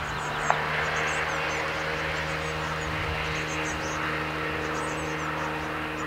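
Nestling birds' thin, high begging chirps in quick clusters over a steady mechanical drone that swells a little in the middle. A single sharp click about half a second in.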